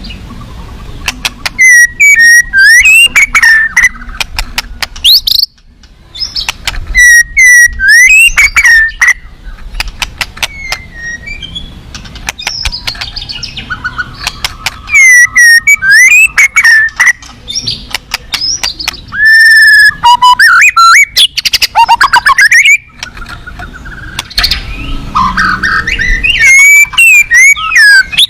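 White-rumped shama (murai batu) singing loudly in repeated bursts: fast rattling and clicking runs mixed with sweeping whistled notes, broken by short pauses. This is the song of a fierce, well-filled competition bird.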